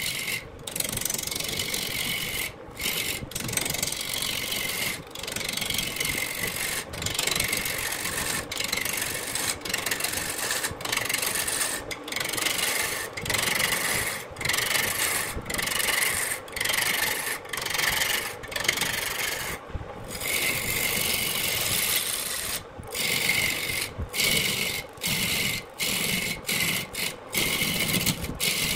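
Turning tool cutting a large wooden blank spinning on a wood lathe: a steady rasping hiss of wood being shaved, broken by short gaps every second or two as the tool comes off the wood.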